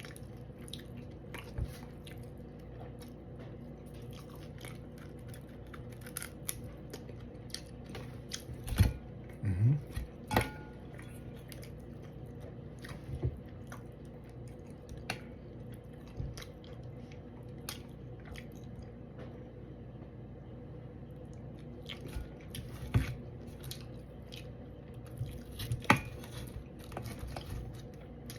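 Close-miked chewing and crunching of fried red snapper, with scattered sharp clicks and a few louder knocks, most clustered about nine to ten seconds in and again near the end, over a steady low hum.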